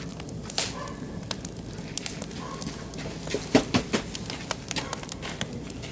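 Wood fire of oak and beech logs crackling, with irregular sharp pops and a cluster of louder pops a little past halfway.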